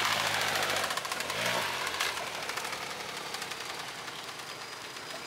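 Motorcycle engine pulling the bike up a flight of concrete steps. It rises in pitch briefly about a second and a half in, then grows steadily fainter as the bike climbs away.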